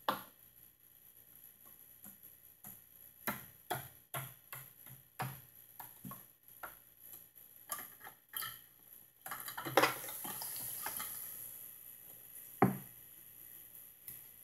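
Small plastic toy figures and dollhouse furniture being handled and set down, with light, irregular clicks and knocks on hard plastic and the tabletop and one louder knock near the end. About nine seconds in there is a couple of seconds of soft rustling hiss.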